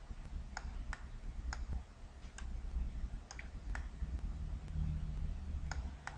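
Computer mouse buttons clicking about nine times at irregular intervals as mesh vertices are dragged and the view is rotated, over a low background hum.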